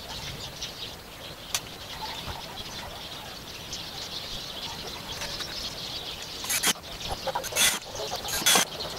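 Small birds chirping steadily in the background, with a few short, sharp knocks from hand work on an old wooden bench: one early and three close together in the last few seconds.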